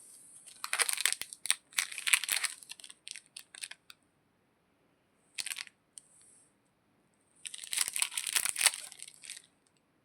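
Candy wrapper being torn open and crinkled by hand, in two spells of crackling with a short rustle between them.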